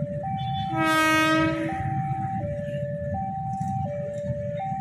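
Railway level-crossing warning alarm repeating a high-low two-note tone, each note about three-quarters of a second, over a low rumble of traffic. About a second in, an approaching KRL commuter electric train sounds its horn once, a steady blast of about a second and the loudest sound here.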